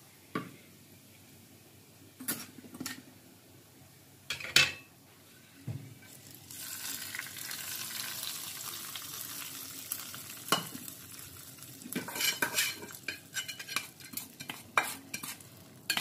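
Hot tadka, spices fried in oil, tipped from a small metal kadhai into a pot of dal, hissing and sizzling for several seconds from about six seconds in. Before that the pans knock a few times, and near the end a steel spoon clinks and scrapes against the small pan.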